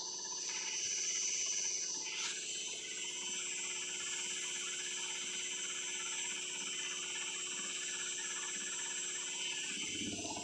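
IFB washing machine in its final spin, the drum and motor running at high speed with a steady high-pitched whine.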